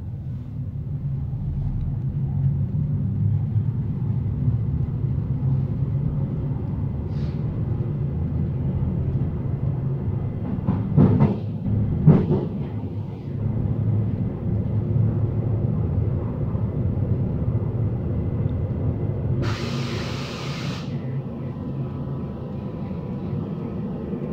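Berlin S-Bahn class 485 electric multiple unit running, heard inside the passenger car: a steady low rumble, with two loud clunks around the middle and a short burst of hiss about twenty seconds in.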